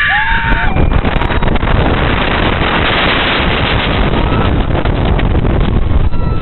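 Steel roller coaster train running fast down a steep drop: a loud, steady rush of wind on the microphone mixed with the rumble of the wheels on the track.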